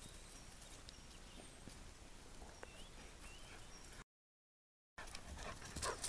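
Quiet outdoor ambience with a few faint, short chirps. The sound cuts out completely for about a second, then rustling and crunching in dry grass grows louder near the end.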